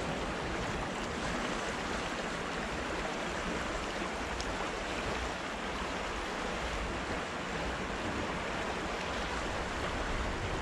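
River water rushing steadily over shallow rapids, an even, continuous wash.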